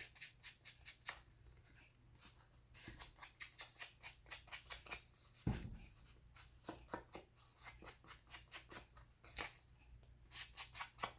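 Paper being handled and worked by hand: runs of quick, scratchy clicks and rustles, with a soft thump about halfway through.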